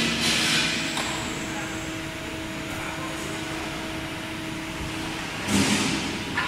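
Horizontal metal band saw's motor running with a steady hum that cuts off about five seconds in. A short hissing rush comes at the start and another about a second before the end.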